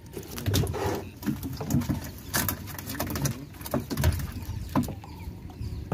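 Wet monofilament gill net hauled by hand over the gunwale of a small boat, water splashing and dripping off the mesh in irregular bursts.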